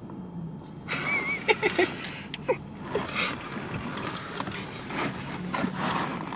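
Hushed whispering passed from ear to ear, broken by stifled giggles and short bursts of laughter, over a low steady hum inside a car.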